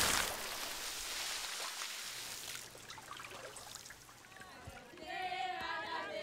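Splashing water thrown up by hand in a shallow river, falling back with a loud hiss that fades over the first two or three seconds into a light trickle. Voices come in about five seconds in.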